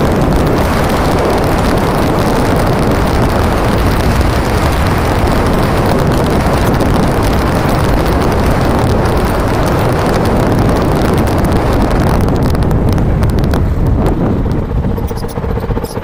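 Off-road motorcycle riding fast on a sandy track, its engine mostly buried under heavy wind buffeting on the microphone. About two seconds before the end the wind eases and the engine's steady note comes through as the bike slows.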